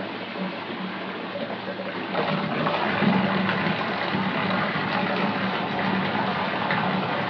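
Water running from a tap into a bathtub, a steady gushing splash that gets louder about two seconds in.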